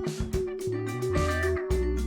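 Background music with guitar, a bass line and a steady beat.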